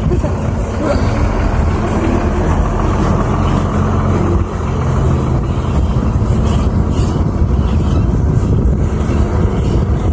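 Diesel engines of a crawler excavator and a dump truck running steadily under work, with a short dip in loudness about halfway through.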